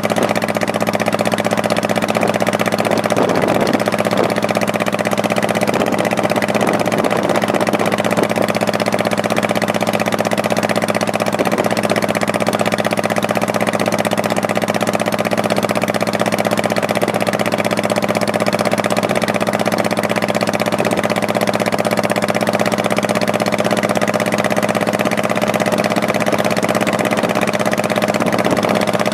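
Honda Shadow Spirit 1100 V-twin motorcycle engine running at a steady speed, its pitch holding almost constant throughout.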